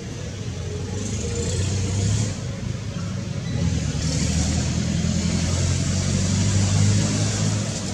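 Motor vehicle engine noise passing by, a low rumble with a hiss, swelling about a second in and again for longer from about three and a half seconds in, fading near the end.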